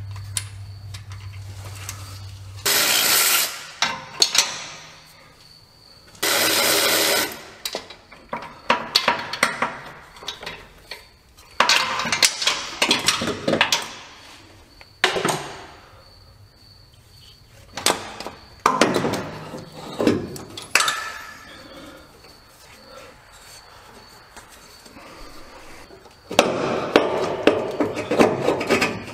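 Hand tools clinking and clanking on metal as a pickup truck's starter motor is worked loose from underneath, with two loud one-second bursts of noise a few seconds in and rapid clicking near the end.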